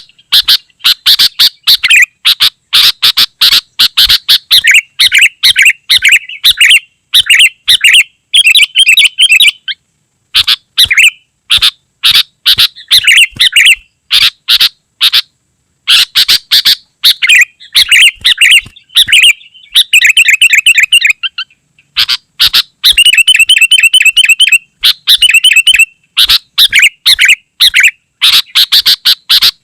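Sooty-headed bulbul (kutilang) singing loudly and almost without pause: quick phrases of chirps packed close together, broken by a few short gaps, with fast trills in the second half.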